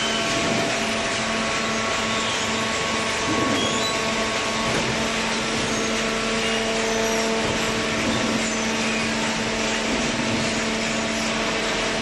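Horizontal cardboard baler machinery running: a steady, loud mechanical noise with a constant low hum and a few fainter steady whines.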